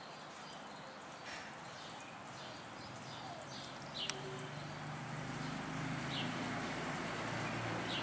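Small birds give brief, high, scattered chirps over steady outdoor background noise, with a sharp tick about four seconds in. From about halfway a low motor hum comes in and grows louder.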